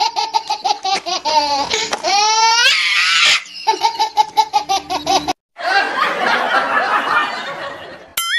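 Dubbed comedy laughter sound effects: rapid, evenly pulsed 'ha-ha-ha' laughs, with laughs that sweep up in pitch about two seconds in. After a brief break past the five-second mark comes a looser, more jumbled burst of laughter, and a warbling cartoon tone starts at the very end.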